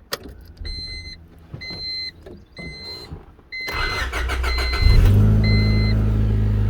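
Honda Civic's dashboard warning chime beeping about once a second while the starter cranks the four-cylinder engine, which catches about five seconds in and settles to a steady idle.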